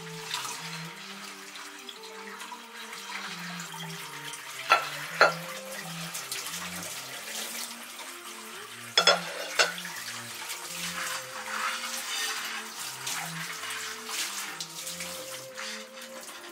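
Water running from a tap into a sink, with two pairs of sharp knocks about five and nine seconds in.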